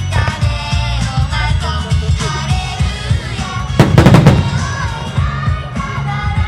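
A pop song with singing and a steady beat, with a quick cluster of loud firework shell bursts about four seconds in.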